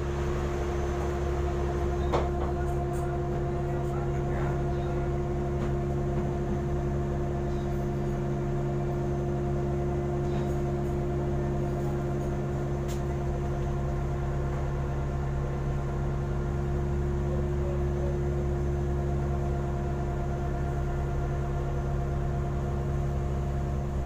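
A shrimp trawler's engine running, heard inside the wheelhouse as a steady low hum with several held tones. There is a faint knock about two seconds in.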